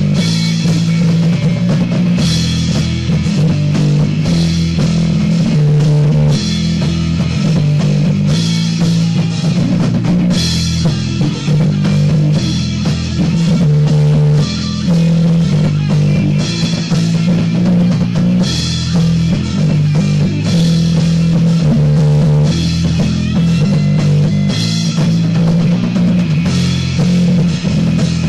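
Rock band playing: electric guitar, bass guitar and drum kit, recorded on a Lloyd's V327 cassette boombox.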